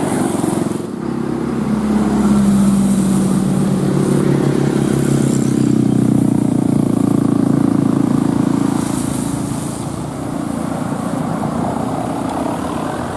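A road vehicle's engine pulling hard under acceleration, its pitch climbing steadily for several seconds and then easing off about ten seconds in.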